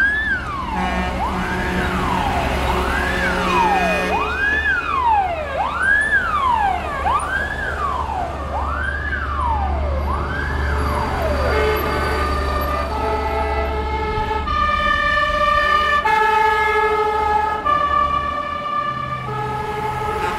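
Vehicle siren wailing up and down about every one and a half seconds over the low running of heavy trucks' diesel engines; about eleven seconds in it gives way to a multi-tone horn sounding a run of held notes, each about a second long.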